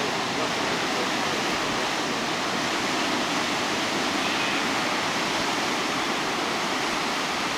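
Steady rushing of ocean surf, an even wash of noise with no single wave standing out.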